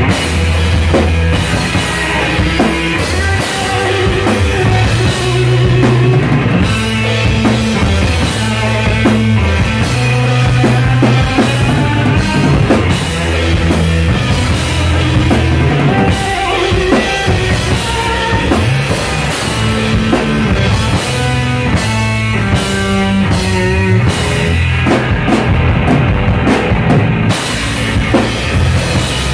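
Instrumental rock played live by a band: a full drum kit with bass drum and cymbals driving under electric guitar, with heavy low notes carrying the line.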